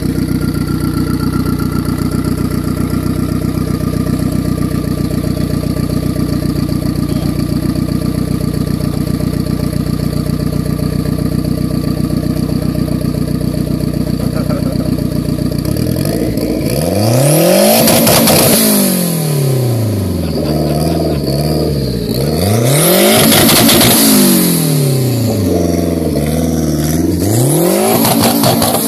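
Tuned hatchback's engine idling steadily, then revved hard three times, each rev climbing and falling back.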